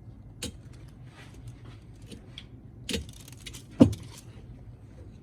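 Metal clinks and knocks on angle grinder parts, with light rattling between them. Three are sharper: one about half a second in, one near three seconds, and the loudest a little under a second later. These fit tapping at the grinder's bearing hub to try to knock it out.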